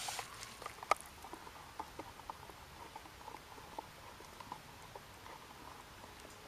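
Small wood-burning camp stove's fire crackling: a faint steady hiss of flame with scattered small ticks and pops, and one sharper snap about a second in.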